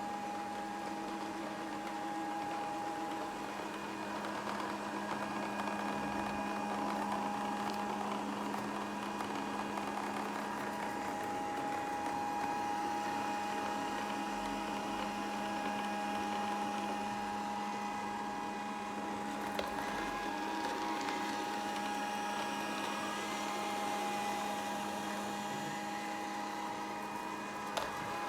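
Grundig VCR 2131 robot vacuum running: a steady motor hum with a few constant tones over an even rushing noise.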